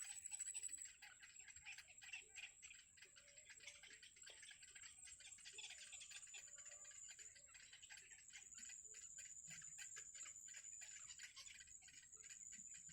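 Faint, fast, irregular ticking over a steady high thin whine, with a few faint short calls underneath.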